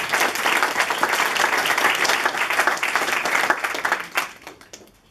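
Audience applauding with dense, steady clapping that dies away about four seconds in.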